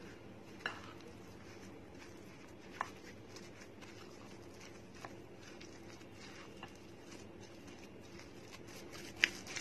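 Faint stirring of a thick, coarse dal batter with a silicone spatula in a glass bowl, with a few light clicks scattered through it.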